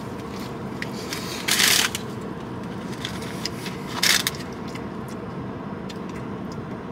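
Paper food wrapper rustling in two short bursts, about a second and a half in and again around four seconds, over a steady low hum inside a car's cabin.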